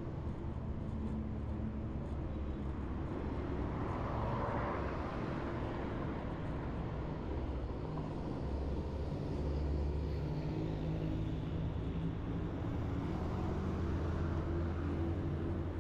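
Road traffic heard from a moving bicycle: a steady low rumble, with a vehicle swelling past about four seconds in and a heavier low engine hum around ten seconds in.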